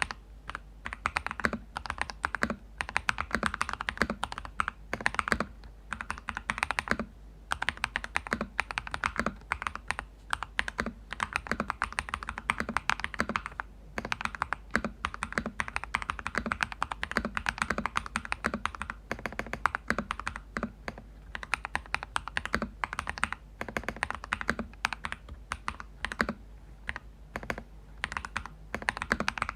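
Fast typing on a Cheap60 EX mechanical keyboard with lubed Crystal Red linear switches: a dense run of firm, thocky keystrokes with a few short pauses. The keys bottom out firmly on a plate backed with double-sided tape and a 1 mm plastic sheet in place of foam.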